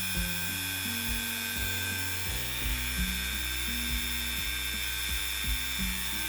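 Dremel 4000 rotary tool on its flex shaft running steadily at speed with a high, even whine, left running to run itself in. Background music with low stepping notes plays along with it.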